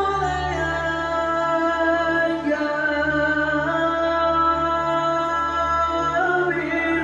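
A young male singer holding long, drawn-out melismatic notes through a microphone and PA, with little audible accompaniment, over a steady low hum; the phrase ends with a falling slide near the end.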